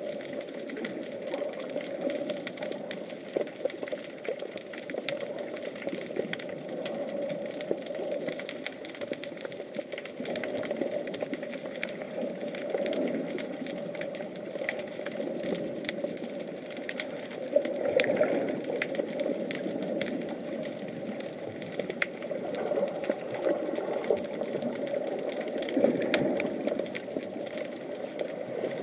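Underwater sound picked up through an action camera's waterproof housing: a steady muffled rush with constant fine crackling clicks, swelling louder about two-thirds of the way through and again near the end.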